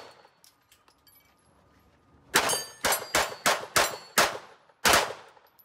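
Pistol firing a rapid string of about seven shots at steel targets, starting about two seconds in. Thin high ringing from struck steel plates follows some of the shots.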